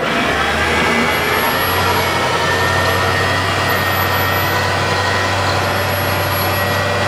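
Sherpa 4x4 electric winch running under load against applied brakes, starting abruptly with a steady motor whine and low hum. It is pulling strongly after eight weeks submerged in salt water.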